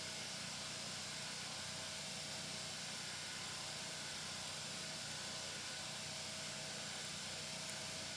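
Steady, even hiss with a faint low hum and no distinct events: background noise.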